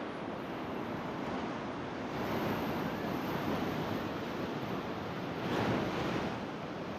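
Ocean surf washing against a rock ledge, a steady rush that swells louder about five and a half seconds in, with some wind on the microphone.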